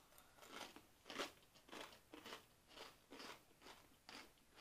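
Onion-flavoured Bisli, a crunchy wheat snack, being chewed: a faint, crisp crunch about twice a second.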